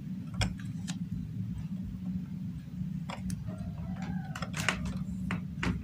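Light, irregular clicks and taps of multimeter probe tips touching the pads of SMD LEDs on an LED bulb's circuit board, over a steady low hum.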